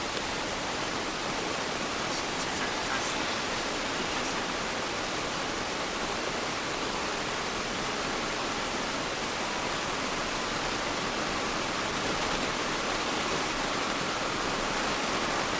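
Steady, even hiss with no engine note, voices or other distinct sound in it.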